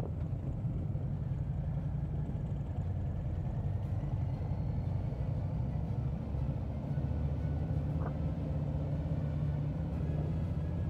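Harley-Davidson V-twin engine running steadily at low speed, a constant low rumble heard from the rider's seat.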